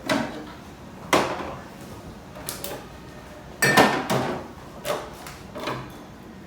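Bottles and food containers being moved and set down on refrigerator shelves: a series of about six irregular clunks and knocks, the loudest cluster a little under four seconds in.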